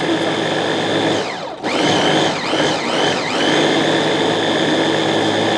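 Stainless-steel electric food chopper running as it mixes cake batter, a steady high motor whine. About a second and a half in the motor slows and drops in pitch. It then speeds up and dips a few times before running steadily again.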